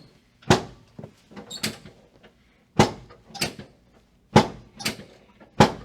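Sharp wooden-sounding knocks from a chiropractic adjusting table under the repeated thrusts of a lumbar extension adjustment: a loud knock about every second and a half, each followed by a softer one.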